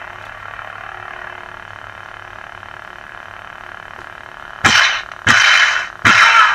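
Lightsaber sound board's steady idle hum, then three clash effects in quick succession starting about four and a half seconds in, each a short, loud crash.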